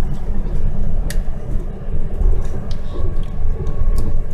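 Low, steady rumble of a bus's engine and tyres heard from inside the moving bus, with a couple of sharp clicks or rattles from the cabin, one about a second in and one near the end.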